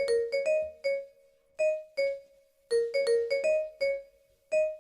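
Music: a song intro of single bell-like electronic keyboard notes, each struck and fading, played as a short melody in small groups with silent gaps and no beat.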